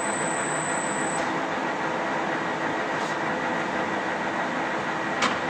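Geminis GE1200N lathe running with its carriage and compound slide moving under power rapid traverse: a steady mechanical whir of gearing and drive. A thin high whine cuts out about a second in, and there is a single click near the end.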